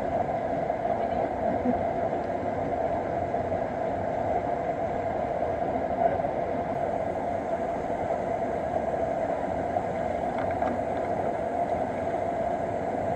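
Stream water rushing steadily over rocks, with one short click about six seconds in.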